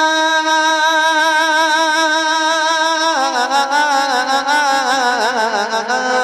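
A man singing a naat unaccompanied: one long held note with a slight waver for about three seconds, then a step a little lower into a wavering run of ornamented notes, and a new held note near the end.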